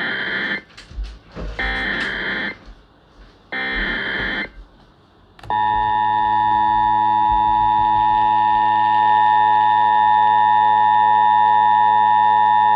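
Emergency Alert System test over broadcast radio: three short bursts of the SAME digital header's data tones about a second apart, then, about halfway through, the steady two-tone EAS attention signal starts and holds, marking the start of a required test.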